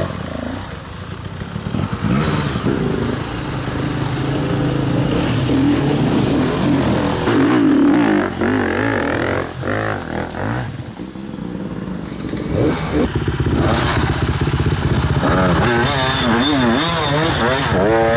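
Enduro dirt-bike engines revving hard under load on a steep climb. The revs rise and fall repeatedly, most sharply about halfway through and again near the end.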